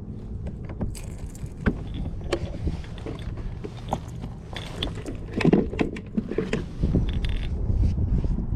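Small clicks, taps and rattles of fishing tackle being handled as a lure is swapped on the line, with a busier cluster of knocks about halfway through, over a low rumble that grows louder near the end.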